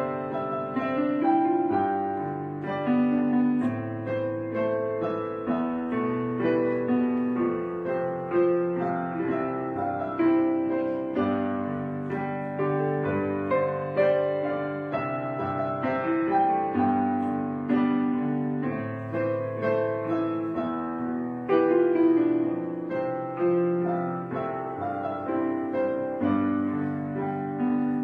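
Background piano music, a steady run of notes and chords played without a break.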